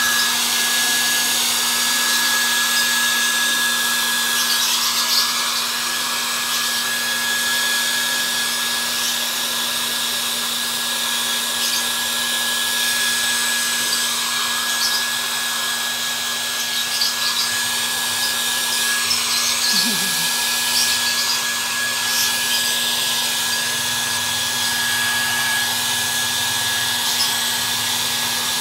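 Electric hair dryer running steadily, a rush of air with a constant high whine and low hum, blowing a Persian cat's fur dry after its bath.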